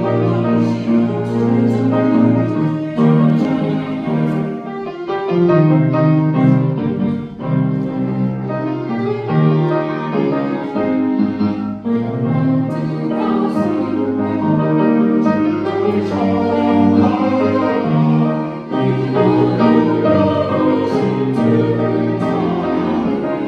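A church choir's anthem: piano and bowed strings playing with choral singing, continuous and full throughout.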